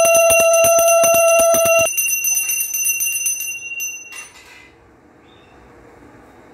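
Puja hand bell rung rapidly, many strokes a second, a bright ringing tone with high overtones; the ringing stops about two seconds in and dies away, leaving faint room sound.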